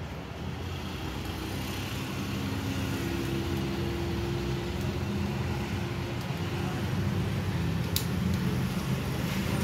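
Steady low rumble of a motor vehicle engine running in the background, slowly getting louder, with one sharp click about eight seconds in.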